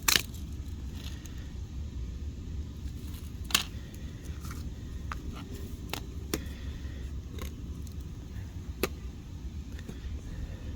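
Sharp clicks and snaps from an Amazon Kindle tablet being pried apart by hand, with its screen coming away from the frame. There are about half a dozen, the loudest right at the start and about three and a half seconds in, over a steady low hum.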